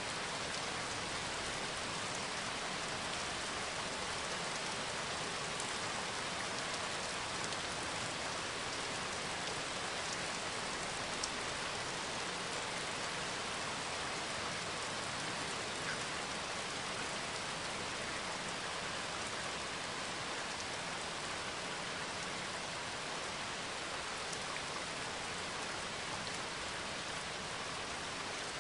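Steady rain, an even hiss of falling rain with a few faint drop ticks.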